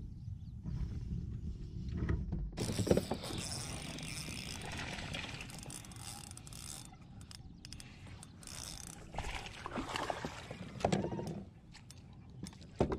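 Spinning reel being cranked to retrieve line, a mechanical whirring with many small clicks, followed by a few clattering handling knocks near the end.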